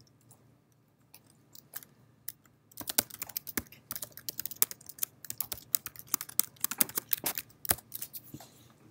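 Typing on a computer keyboard: a few scattered keystrokes, then a quick run of key clicks from about three seconds in that eases off near the end.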